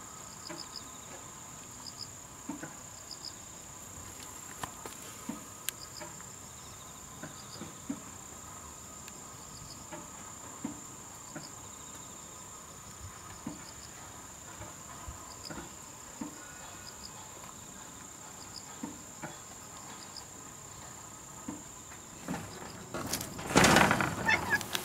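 Insects singing steadily: a continuous high-pitched trill with short chirps repeating about once a second, and faint soft taps now and then. Near the end, loud rustling and scraping.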